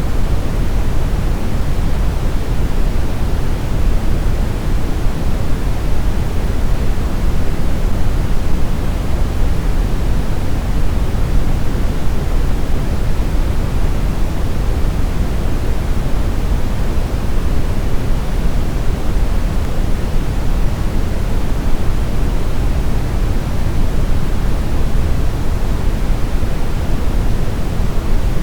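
Steady, unchanging brown noise: an even, deep hiss weighted heavily toward the low end, with no tones or events.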